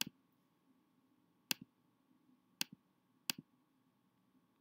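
Computer mouse clicking: four sharp clicks, each a press followed quickly by a softer release, spaced about one to one and a half seconds apart.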